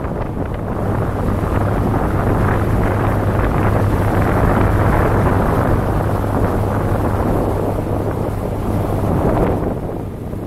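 Wind buffeting the microphone of a motorboat under way, over the steady low hum of its engine and the rush of water past the hull. The noise eases a little near the end.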